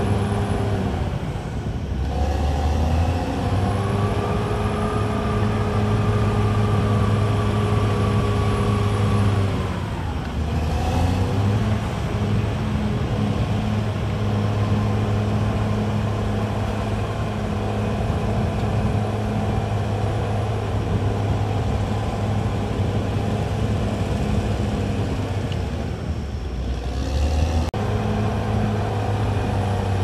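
Caterpillar D6R XL crawler bulldozer's diesel engine running steadily under load while the machine works soil. A steady whine rides over it for several seconds. The engine note dips and picks up again about ten seconds in and again near the end.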